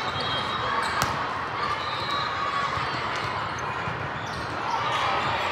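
Busy tournament-hall ambience: a steady wash of background voices with volleyballs thudding and bouncing across many courts, and one sharp ball strike about a second in.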